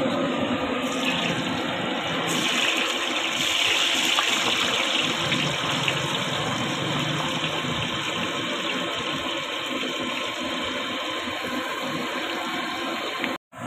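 Raw banana slices frying in a large iron kadai of hot oil: a steady sizzle as fresh slices are shaved from a hand slicer straight into the oil, a little stronger early on, breaking off briefly near the end.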